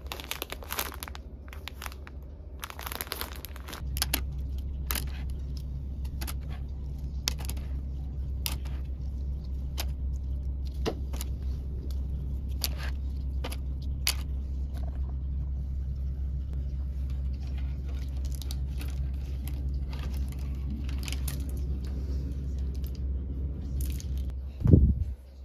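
Plastic packaging crinkling as packets are handled for the first few seconds, then a steady low hum with scattered light clicks and taps from plastic clothes hangers being handled, and a louder knock near the end.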